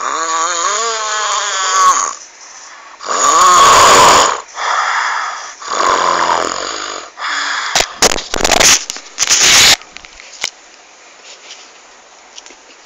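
Loud snoring: a series of rasping snore breaths, the first with a wavering pitched tone, following one another about every second. About eight seconds in comes a cluster of sharp crackles, and it is much quieter for the last few seconds.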